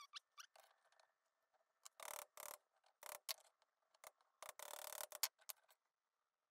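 Faint handling noises of a moped crankshaft and workshop tools at a steel bench vice: two short scrapes, about two seconds in and again about four and a half seconds in, with a few light metal clicks between and after.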